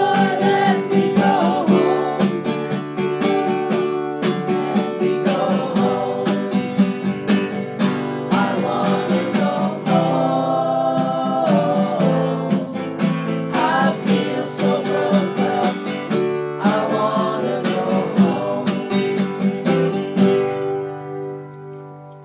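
A woman singing a folk-style melody over strummed acoustic guitar, with one long held note about halfway through. The music stops near the end and the last chord fades out.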